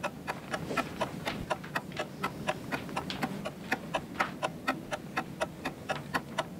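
Clock ticking fast and evenly, about four ticks a second, marking time running on a timed test.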